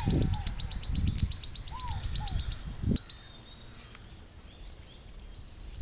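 A songbird singing a fast trill of short, high notes for the first two seconds or so, with a few lower slurred calls from other birds. Low rustling bumps sound close by in the first three seconds, then it goes quieter with only faint bird notes.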